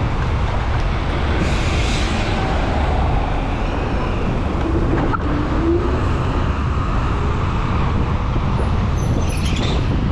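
Steady wind and road noise while riding a Segway GT2 electric scooter: a dense low rumble, with brief hissing swells about two seconds in and near the end.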